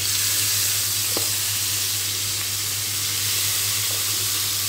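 Wet yogurt-marinated beef sizzling steadily in about two tablespoons of hot oil in a non-stick frying pan, over a steady low hum.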